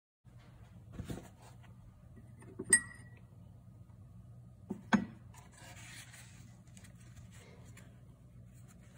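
Steel knife blade handled at a glass jar of etching solution: a soft knock, then two sharp clinks about two seconds apart, the first ringing briefly like metal on glass, followed by a soft rubbing as the blade is wiped on a paper towel. A low steady hum runs underneath.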